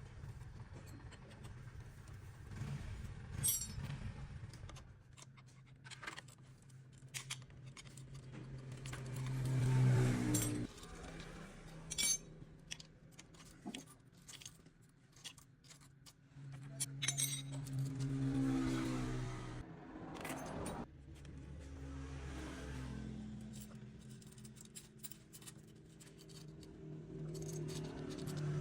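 Motorcycle engine running and revved up twice, rising in pitch to about ten seconds in and again around eighteen seconds, each time falling back suddenly. Metallic clinks and scrapes are heard throughout, from a bike being checked for an engine noise problem.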